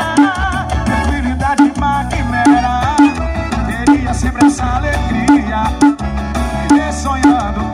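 Music with singing and a heavy bass line, played loud through a paredão, a trailer-mounted wall of loudspeakers, with a steady pounding beat.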